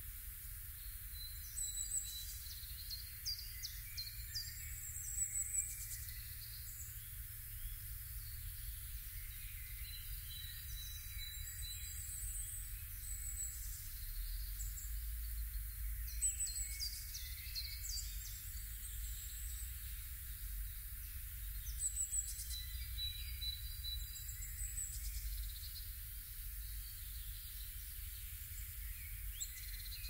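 Woodland birds chirping and singing: many short, high calls and trills from several birds, over a low steady rumble.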